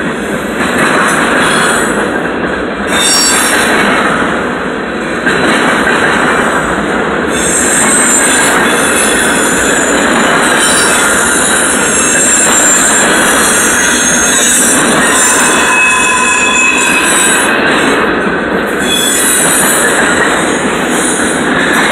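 Freight cars of a Canadian National train rolling steadily past at close range, a loud continuous rumble and rattle of wheels on rail, with thin high wheel squeal coming and going.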